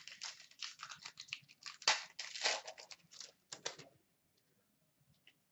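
Foil wrapper of a 2015-16 Upper Deck Ice hockey card pack being torn open and crinkled by hand, a dense run of crackling rustles that stops about four seconds in.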